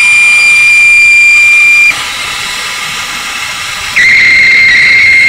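Compressed shop air rushing through an AirLift venturi coolant-vacuum tool, pulling a vacuum on the cooling system: a loud, steady, whistling hiss. It drops to a softer hiss about two seconds in and comes back loud, with a slightly lower whistle, about two seconds later.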